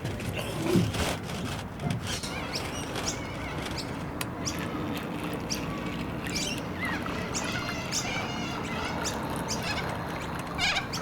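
Small birds chirping and tweeting around a pond, with a low waterfowl honk about a second in.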